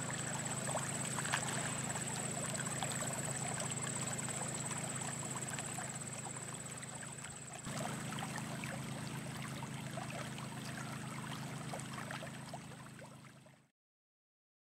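Water gushing steadily from the outlet of a floating pump's layflat discharge hose onto grass, over the steady hum of the pump's small engine. The sound fades out near the end.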